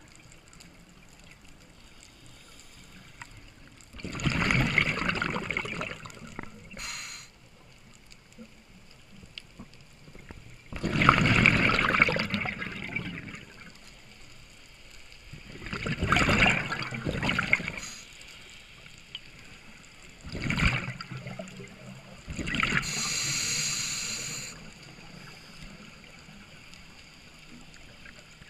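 Scuba diver breathing through a regulator underwater: five loud bubbling rushes of exhaled air a few seconds apart, over a low background hiss.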